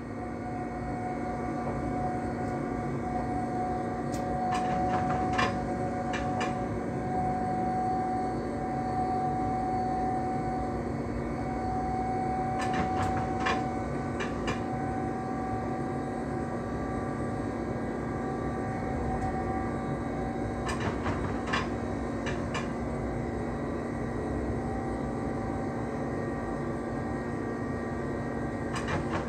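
Electric train running steadily, heard from inside the driver's cab: a constant rumble with a steady hum and a fainter whine. Short clicks come in small groups every several seconds.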